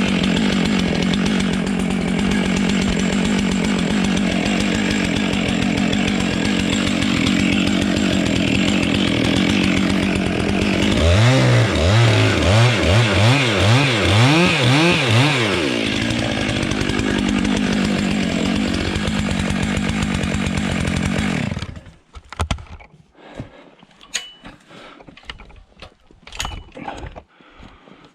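Chainsaw running under load, cutting into a tree. Around the middle its pitch rises and falls over and over for a few seconds, then the saw cuts off suddenly, leaving only faint scattered knocks and clicks.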